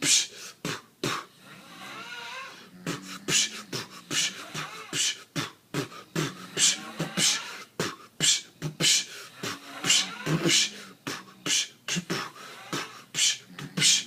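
Beatboxing: a mouth-made drum-and-bass beat of sharp, snare-like hits about twice a second over a low hummed line, built around a sleeper's snoring.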